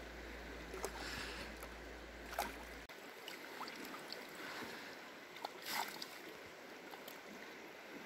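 Shallow river water running steadily, with a few short splashes as a large rainbow trout is grabbed and lifted by hand in the shallows, the loudest splash a little after halfway.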